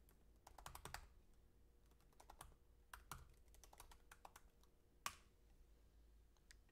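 Faint computer keyboard typing as a web address is keyed in: a quick run of keystrokes about half a second in, a few scattered ones around two to three seconds, and one sharper key press about five seconds in, the Enter that loads the page.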